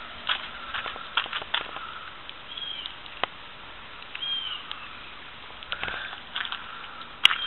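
Scattered sharp clicks and ticks, with two short bird chirps, one about two and a half seconds in and one about four seconds in.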